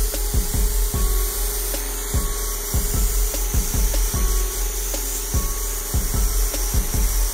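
Gravity-feed spray gun spraying candy paint, a steady airy hiss of air and atomised paint, with irregular low thuds throughout.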